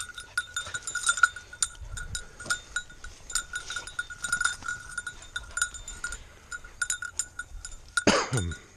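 Small bell on a springer spaniel's collar tinkling in irregular jingles as the dog moves about. About eight seconds in, a short, loud sound slides steeply down in pitch.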